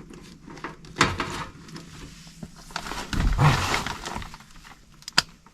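Hands working over the wiring inside an HVAC air handler while the wire connections are checked: sharp clicks and knocks about a second in and near the end, with a longer rustling, scraping stretch in between.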